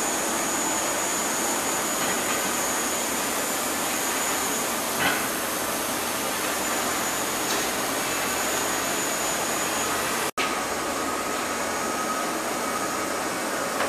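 Steady rushing machine noise with a thin high whine running through it. It drops out for an instant about ten seconds in, and a lower whine follows.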